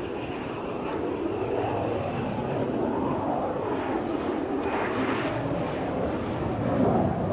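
Jet noise from an F-35B's Pratt & Whitney F135 engine: a steady rushing sound that swells slightly near the end.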